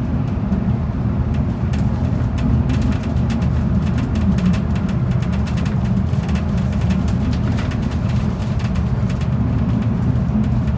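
Commuter bus under way: a steady low engine and road drone, with frequent light rattles and clicks throughout.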